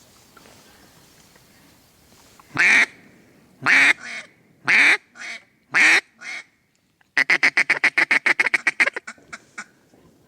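Mallard duck call blown hard: four long, loud hen quacks with softer ones between, then a quick run of about twenty short notes in a fast chatter like a feed call, tailing off in a few last notes.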